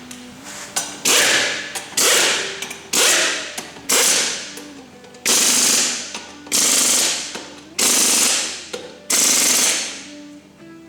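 A power wrench, such as an impact wrench or air ratchet, run in eight short bursts about a second apart, each starting sharply and tailing off, while fasteners are run down during reassembly of the ATV's front end.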